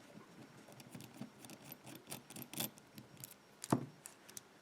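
Small metallic clicks and scrapes of a knife blade working on a padlock's lock core to press down a pin, with one louder click about three and a half seconds in.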